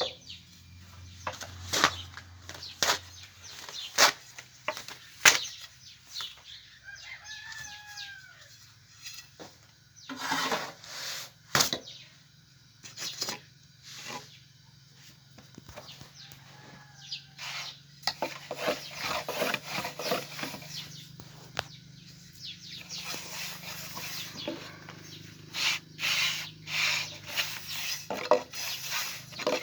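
Domestic fowl calling, with a long arching call about seven seconds in and a shorter one near seventeen seconds, among repeated sharp knocks and clatter.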